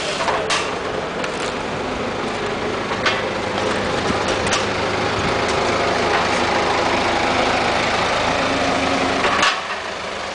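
Toyota forklift's engine running as it drives up, a steady drone that grows louder and then drops off sharply near the end, with occasional clanks from metal carts being pushed.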